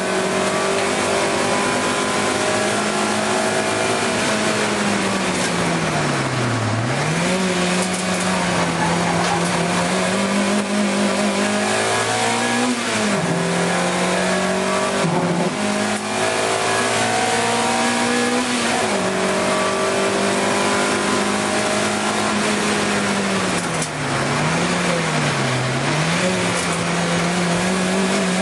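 Racing car's engine heard from inside the cockpit, running hard at high revs around the circuit. Its pitch falls several times as the driver lifts off and changes down for corners, then climbs again under acceleration.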